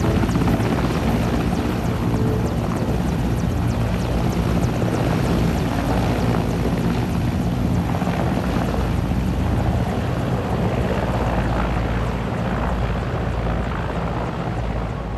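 Helicopter running close by: a steady, loud rotor and engine noise that eases slightly near the end.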